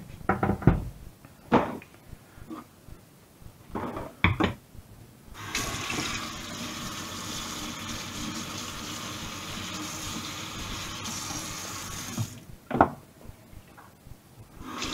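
Kitchen tap running into a stainless steel sink for about seven seconds while a utensil is rinsed under it. Before it come a few knocks and clatters of things being handled on the counter, and just after it stops, one sharp knock, the loudest sound here.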